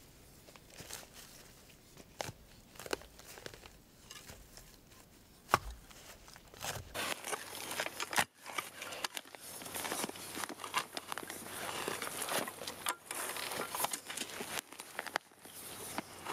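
Steel blade of a folding tri-fold shovel digging into root-laced forest soil: gritty scrapes and crunches of earth, with a few sharp knocks in the first half, the loudest about five and a half seconds in. From about halfway the scraping and crunching become near-continuous.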